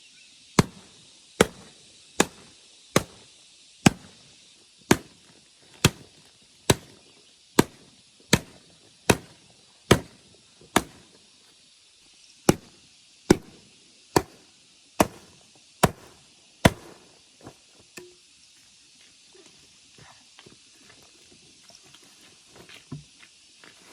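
Blade chopping palm leaves in steady, sharp strokes, a little over one a second, with a brief pause midway; the chopping stops about two-thirds of the way through, leaving only faint rustling.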